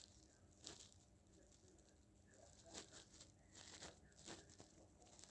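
Near silence, broken by a few faint, brief rustling scratches.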